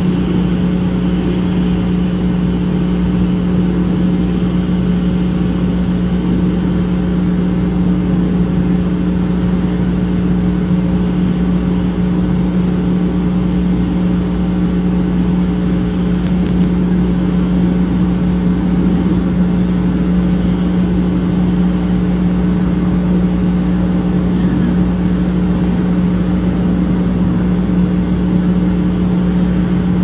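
A steady, unbroken hum with constant low tones over a hiss, holding the same level throughout; no bird call stands out above it.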